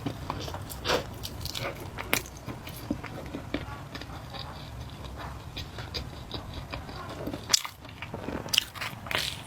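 Close-miked chewing and biting of spicy flat noodles, with irregular wet mouth clicks and smacks. There is a sharp click about three quarters of the way through and a cluster of louder ones near the end.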